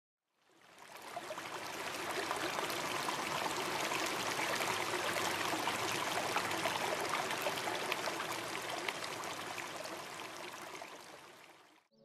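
River water rushing and splashing over boulders in small cascades, a steady dense hiss that fades in over the first couple of seconds and fades out near the end.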